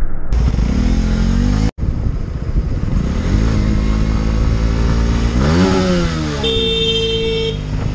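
On-board motorcycle engine revving up through the gears, its pitch climbing, cut short by an edit about two seconds in. The engine then runs on, rising and falling in pitch as the throttle opens and closes, with a steady horn-like tone for about a second near the end.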